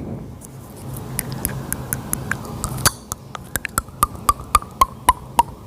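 A series of short, sharp clicks, about two to three a second, from about three seconds in. Over the first half, a steady low hum and hiss.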